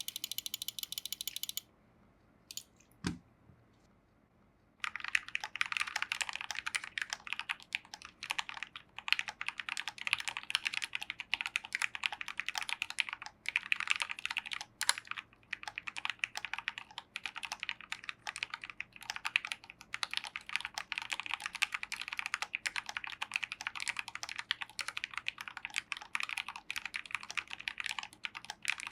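Fast, continuous typing on a Maja split ergonomic keyboard with a brass plate, EPBT keycaps and lubed Gateron Ink Black V2 linear switches, starting about five seconds in with brief pauses. Before that, a short high-pitched sound and a single knock.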